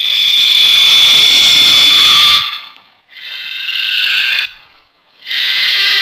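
Cartoon monster snarl sound effect: three snarls in a row, the first about two and a half seconds long with a thin high tone running through it, the next two shorter, each cutting off sharply.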